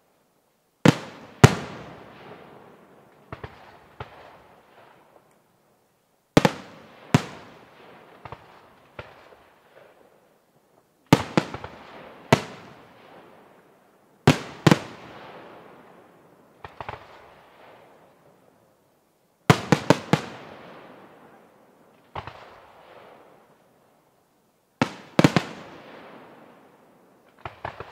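Aerial firework shells bursting, sharp bangs mostly in pairs or quick clusters every few seconds, each trailing off in a long echo, with fainter pops in between.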